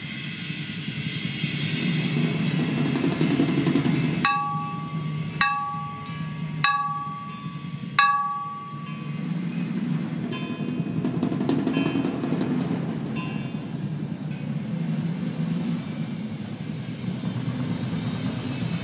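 Four mallet strikes on a ringing metal percussion instrument, about a second and a quarter apart, each leaving a clear pitched ring that dies away within about a second. Fainter high bell-like pings come before and after the strikes, over a steady low rumble.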